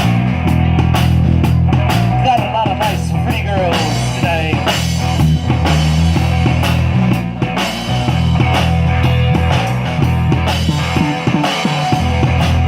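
Live band playing a rock-style number, with drums keeping a steady beat over a heavy bass line. A lead melody with wavering, bending notes stands out about two to five seconds in.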